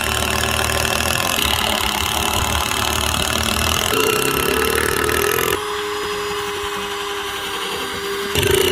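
Cordless drills running under load, drilling pilot holes and driving screws into wooden cross braces. About five and a half seconds in, the sound drops to a quieter, steady whine, and it jumps back near the end.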